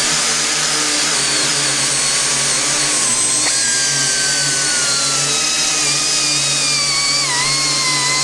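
Two 12,000 RPM air-powered die grinders whining together as their 3-inch Roloc discs sand composite inside vacuum shrouds, over the steady rush of the Ruwac NA35 explosion-proof vacuum drawing dust through the hoses. A second whine joins about three and a half seconds in, and the pitches slowly sag as the discs bear on the work.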